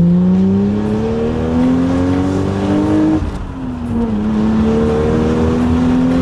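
A Toyota 1JZ turbocharged straight-six engine accelerating under load, its pitch rising steadily. About three seconds in it drops sharply for a manual upshift, then climbs again more slowly in the next gear.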